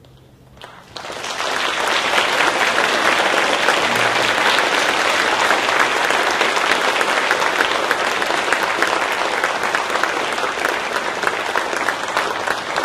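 Audience applause: a few scattered claps, then full applause that builds about a second in and holds steady.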